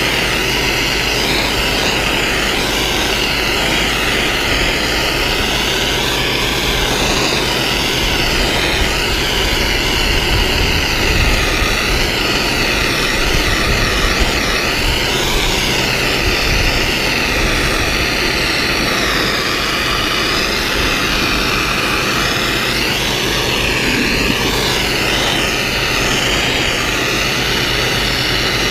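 Engine-driven pressure washer running steadily, its engine drone under the hiss of the wand's high-pressure jet spraying an exposed-aggregate concrete walkway.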